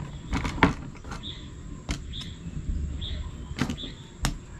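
A meat cleaver chopping through cooked mud crabs on a wooden chopping board: about six sharp, separate knocks at uneven intervals.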